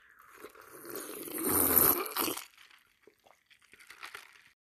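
A person takes a long sip of soda from a paper cup, a noisy slurping sip that builds to its loudest about two seconds in, followed by a few faint mouth clicks.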